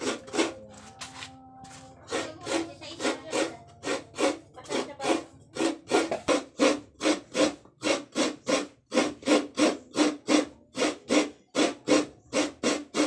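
Rhythmic rasping strokes of food being grated by hand, about two to three strokes a second, falling into a steady beat after about two seconds.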